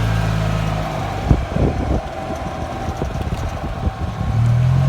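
A golf cart's motor running steadily as it drives, dropping away about a second in while a run of irregular knocks and rattles comes through, then picking up again near the end.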